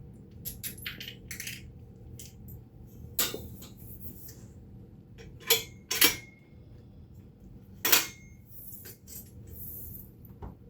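Metal hardware clinking and clanking as a wheel's bolt, washer and end cap are fitted by hand to a steel mitre saw stand. Small clicks come first, then a few sharp clanks through the middle and later part, some with a short metallic ring.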